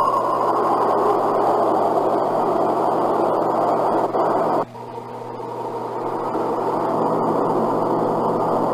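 Steady hiss of an old field-recording tape, strongest in the low and middle range, that cuts out abruptly about four and a half seconds in and then slowly swells back.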